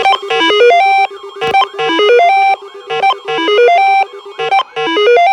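Electronic alert tone: a short ringtone-like melody of stepped synthesized notes, repeating about every second and a half.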